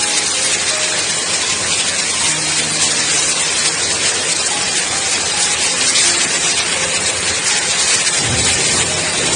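Heavy rain with hail driven by strong wind, a loud, dense, steady hiss of water and ice pelting surfaces.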